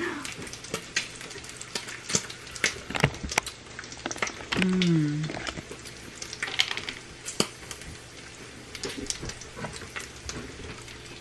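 Food frying in a pan, a steady sizzle broken by scattered crackles and pops.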